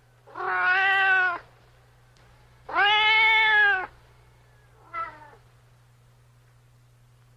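Domestic cat meowing: two long, loud meows of about a second each, then a shorter, fainter meow about five seconds in.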